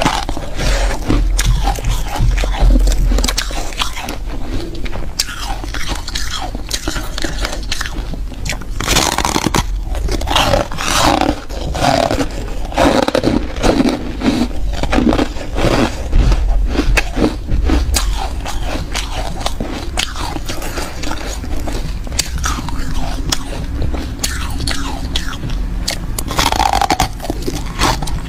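Frost-coated chunks of refrozen ice being bitten and chewed: many sharp crunches in quick succession, close to the microphone.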